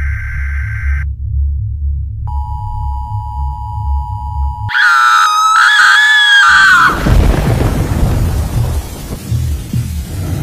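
Horror-intro sound effects. A short electronic beep over a low pulsing drone gives way, about two seconds in, to a steady two-tone emergency-broadcast alert tone. Near the middle a loud wavering scream rises over the tone, then both cut into loud TV static hiss with low thumps.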